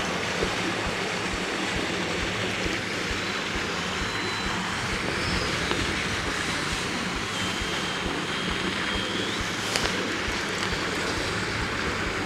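Steady rushing of water splashing from a pond's fountain aerator, with a low steady hum beneath it.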